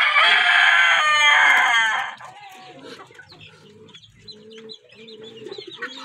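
Desi rooster crowing, one long call that ends about two seconds in, followed by quieter clucking and scattered calls from the flock.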